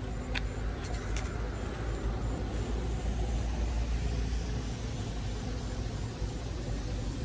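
Steady low rumble with tyre hiss from a vehicle passing on the wet road, swelling in the middle and easing off. A couple of sharp clicks in the first second or so.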